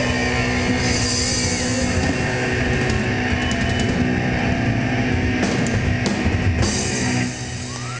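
Speed/power metal band playing live: distorted electric guitar over a drum kit, with cymbal crashes in the middle of the stretch. The music drops in level shortly before the end.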